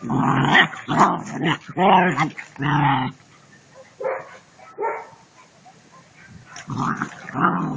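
German shepherd puppies barking and yipping as they play: a run of four quick barks, a quieter spell with a couple of short yips, then more barks near the end.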